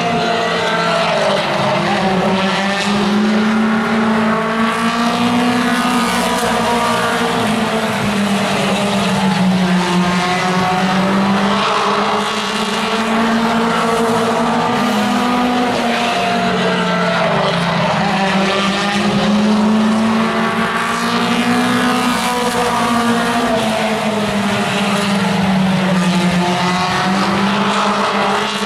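Mini stock race cars' engines running hard on an oval track. The engine pitch rises and falls again and again as the cars accelerate down the straights and lift for the turns, and cars pass by continuously.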